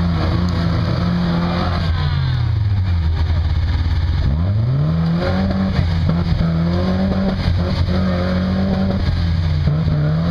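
Lifted 4x4 pickup truck's engine working as it crawls up a steep, rutted mud hill. The revs sag low about three seconds in, climb back quickly, then rise and fall with the throttle, with small knocks throughout.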